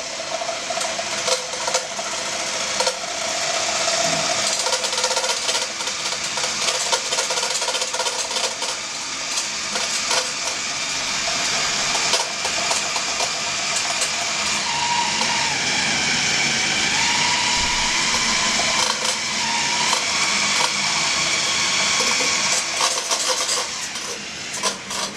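Electric hand mixer whipping egg white in a small stainless steel pan: a steady motor whir with scattered clicks, its pitch wavering briefly in the middle, stopping near the end.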